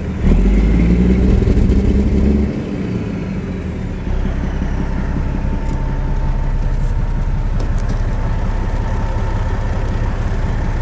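Detroit Diesel Series 60 12.7-litre diesel engine running, louder for the first couple of seconds, dropping back, then settling into a steady run from about four seconds in.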